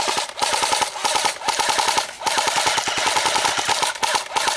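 Airsoft gun firing full-auto in several long bursts of rapid clacks, each run carrying a steady whine, with short breaks between the bursts.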